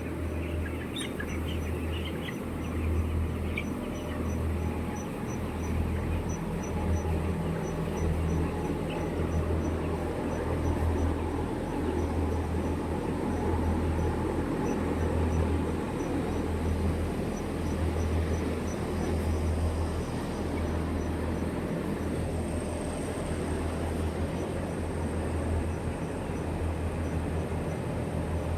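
Poultry-house ambience: a few short bird calls, in keeping with chickens, in the first few seconds, over a continuous low rumble that swells and fades unevenly every second or so.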